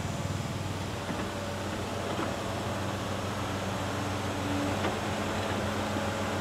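Tracked hydraulic excavator's diesel engine running steadily as the machine lifts, swings and dumps a bucket of earth, with a few light knocks.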